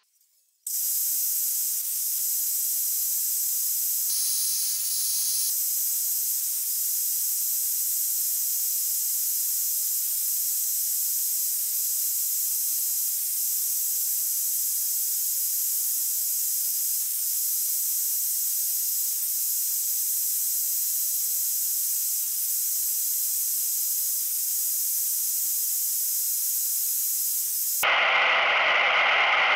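Benchtop table saw starting up and running, heard as a steady, even high hiss while a crosscut sled is pushed through it, with a brighter stretch about four seconds in. Near the end the sound turns louder and lower.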